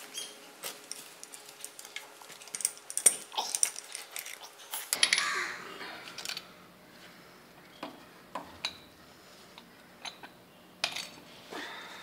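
Metal clinks and rattles from a spanner and the loose motorcycle drive chain as the rear sprocket assembly is handled: scattered sharp clicks, with a longer rattling rush about five seconds in.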